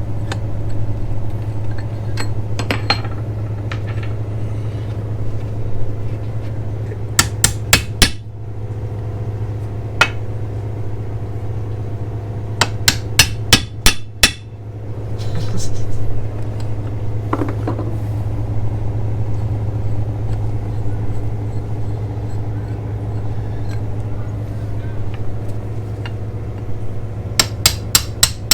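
Hammer blows on metal, knocking bolts loose. There are four quick strikes about seven seconds in, a single one at ten seconds, six fast strikes around thirteen seconds and another quick run near the end, all over a steady low hum.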